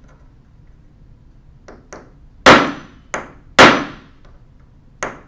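Ball-peen hammer striking a steel pin punch to drive a taper pin out of a 1920s Monroe Model K mechanical calculator part: two light taps, then three sharp ringing metal-on-metal blows in about a second, the middle one lighter, and a light tap near the end.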